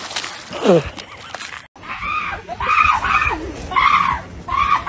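Water splashing as a husky plunges off a stone ledge into a lake, with one falling cry over the splash. Then, after a cut, about five short, high, arching calls in quick succession.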